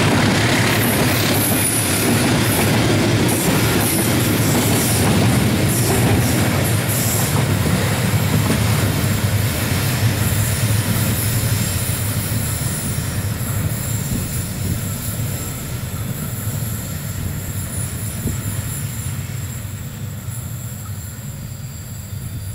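Long train of railway fuel tank wagons rolling past on a curve: steady rumble and clatter of wheels on rail, with thin high-pitched wheel squeal in the first several seconds. The noise fades gradually over the second half as the last wagons move away.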